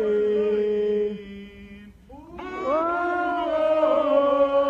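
Protesters' voices singing a protest chant in long held notes. The singing breaks off briefly about two seconds in, then the next held line begins.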